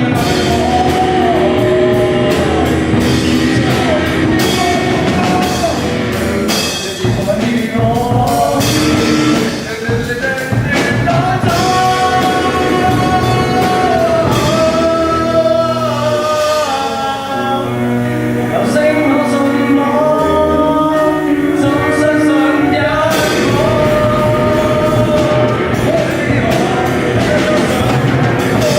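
A rock song with a sung melody over the band, with guitar and drums.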